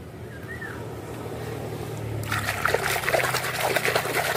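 A hand swishing and splashing in a tub of water while washing muddy plastic toys. It starts fainter and turns into dense, continuous splashing about two seconds in.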